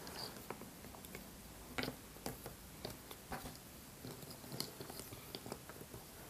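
Cardboard jigsaw puzzle pieces being shuffled and set down on a tabletop by hand: faint, irregular clicks and light rustling.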